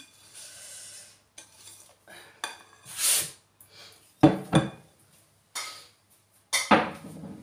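Metal wire whisk scraping and clinking in a glass mixing bowl of cake batter, then a few loud knocks and thuds as the bowl is handled on the wooden worktop.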